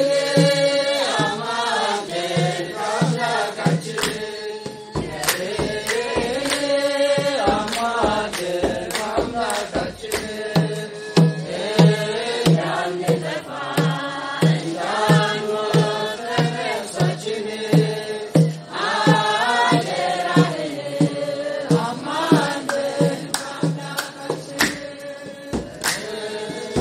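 A group singing an Ethiopian Orthodox hymn (mezmur) together, accompanied by a kebero hand drum beating a steady rhythm of about two strokes a second.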